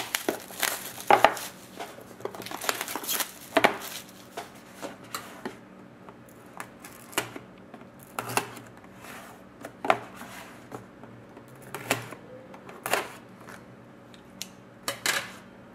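Small cardboard boxes being handled and opened by hand on a tabletop: scattered taps, scrapes and rustles of cardboard, with a small blade cutting the box seal. The clatter is busiest in the first few seconds, then comes in single taps about every second.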